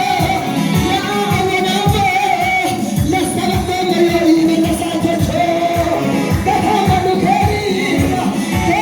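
A song: a voice sings an ornamented, wavering melody over a band with a steady drum beat.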